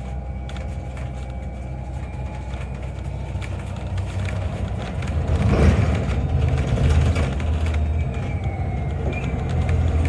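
City bus driving along, heard from inside the cabin: a steady low rumble of engine and road noise with a faint steady whine, growing louder about halfway through with a brief rush of noise.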